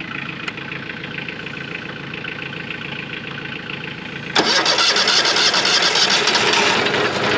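Wood-Mizer LT40 sawmill engine starting in freezing cold: a quieter, steadily pulsing engine sound, then about four seconds in the engine catches and runs much louder.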